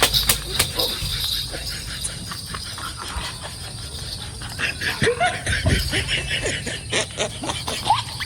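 People's voices: stifled snickering and brief squeals, amid scattered short clicks.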